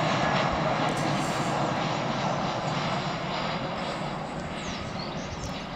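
Jet airliner coming in to land, its engines a steady rushing noise that slowly fades.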